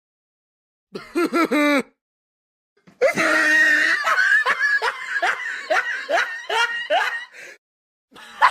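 A person laughing: a short laugh about a second in, then a longer laugh in rapid rising pulses from about three seconds in.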